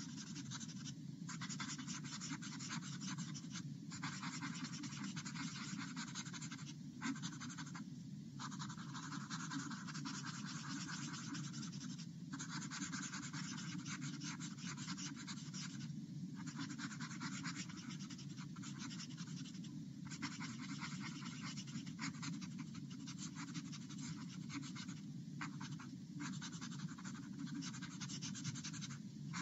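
A shading tool rubbing back and forth on drawing paper, blending in shading: a continuous scratchy rubbing broken by brief pauses every few seconds, over a steady low hum.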